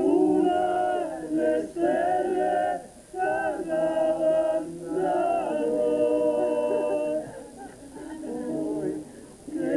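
Small male vocal ensemble singing a cappella in harmony: phrases of held chords with short breaks between them, quieter in the last couple of seconds.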